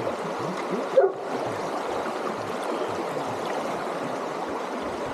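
Flowing stream water, a steady rush, with one short louder sound about a second in.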